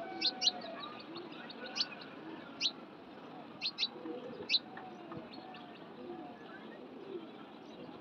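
Pigeons cooing softly in a loft, with about seven sharp, high, falling chirps from small birds over the first five seconds.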